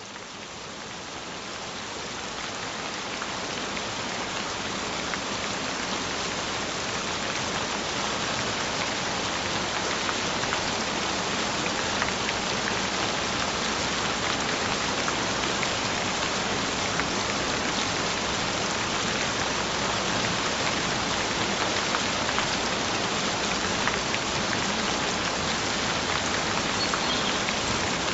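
Steady gentle rain falling, fading in over the first few seconds and then holding even.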